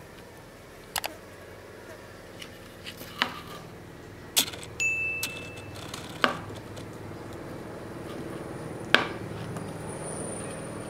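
Sharp clinks and knocks of chopsticks against a metal serving tray as a noodle papaya salad is mixed and lifted, about five separate strikes, with a brief high ping a little before the middle.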